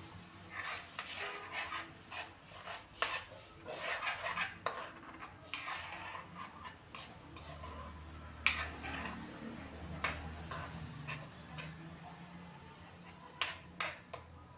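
Metal spoon scraping and clinking against a wok while stirring a wet mixture, with irregular scrapes and taps and one sharper knock about eight seconds in.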